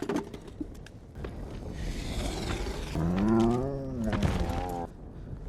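A dragon's low, drawn-out call that rises and then falls in pitch, starting about three seconds in and cutting off just before the end. Before it come a few light clicks and a soft whoosh.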